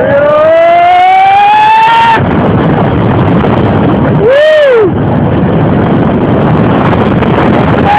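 Roller coaster ride: steady rushing noise of wind and the train running on the track, with a rider's long rising scream for the first two seconds and a short rise-and-fall whoop about four and a half seconds in.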